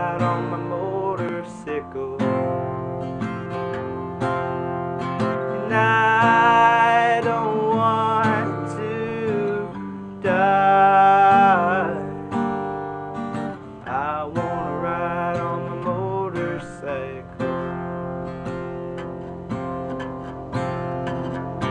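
Music: an acoustic guitar strumming through a passage without lyrics. Around six seconds in and again around ten seconds in, a louder melody line comes in that wavers and bends in pitch.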